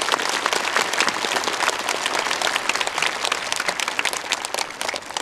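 Large crowd applauding: dense clapping from many hands that thins out and dies away near the end.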